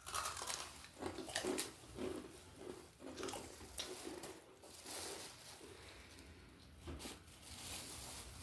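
People crunching and chewing crispy onion-ring snack chips, in irregular crackly crunches.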